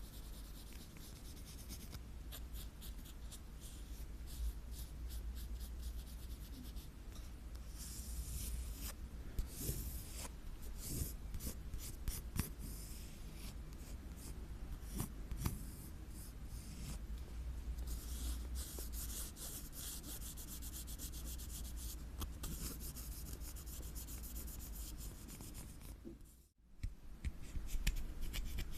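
ASMR scratching: nails or fingertips scratching and rubbing an object's surface right at the microphone, in fast, irregular scratchy strokes. It breaks off for a moment near the end at a cut, then picks up louder.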